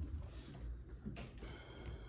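Quiet room tone with a steady low rumble and one soft click about a second in.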